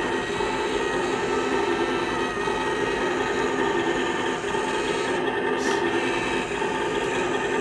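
Small electric turret-traverse motor and plastic gearbox of a 1/35-scale RC ZTZ-99A tank, whirring steadily as the turret turns.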